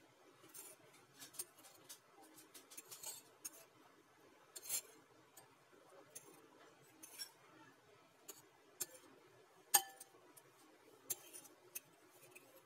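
Metal fork tapping and scraping against a white ceramic bowl as it turns a bread roll in beaten egg: scattered light clinks. The sharpest clink comes a little under ten seconds in and rings briefly.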